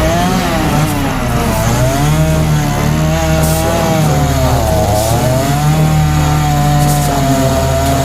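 Chainsaw cutting wood, its engine pitch dipping and recovering every second or two as the chain bites into the cut.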